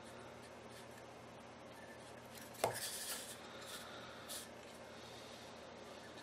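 Handling noise of a surveillance camera and its mounting junction box: a sharp knock about two and a half seconds in, then a few light clicks and rubs, over a faint steady hum.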